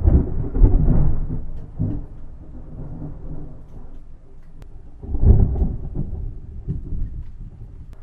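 Thunder: a loud clap right at the start that rolls off into rumbling, then a second loud peal about five seconds in that rumbles and fades.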